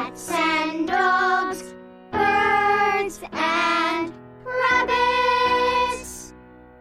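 Children's music jingle: a bright melody in about four short phrases over backing instruments, the last note held before the music fades out.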